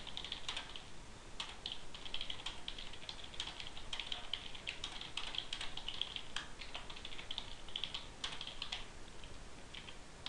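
Typing on a computer keyboard: a quick, uneven run of keystroke clicks with brief pauses between bursts.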